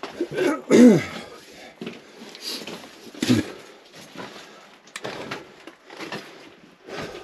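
A person scrambling over rock in a mine tunnel: irregular scrapes and knocks of rock and gear, with a short strained grunt about a second in and another brief vocal sound a little after three seconds.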